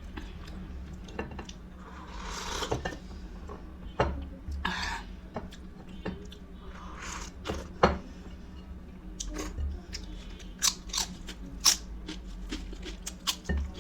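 Close-up eating sounds: a person chewing and crunching food, with many sharp mouth clicks and smacks, coming thick and fast in the last few seconds, and a few short crunchy rustles.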